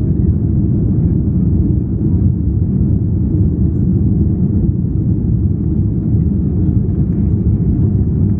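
Steady low rumble in the cabin of a Boeing 787 Dreamliner rolling on the ground: engine noise mixed with the rumble of the wheels on the pavement.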